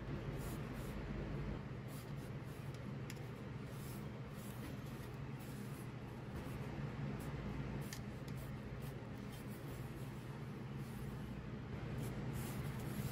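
Faint scratchy rubs and light clicks of fingers handling and turning a small thin steel plate, over a steady low hum.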